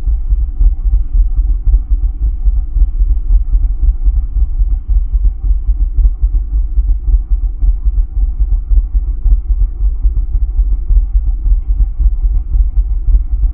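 Deep, throbbing low drone with faint steady higher tones held above it: a dark ambient soundtrack.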